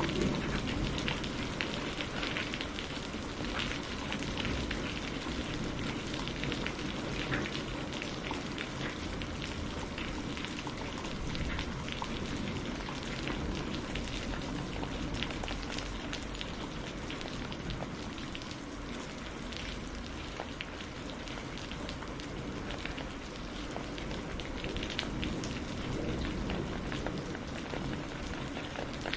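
Steady rain falling, with many distinct close drop impacts ticking over an even hiss of rainfall; no thunderclap stands out.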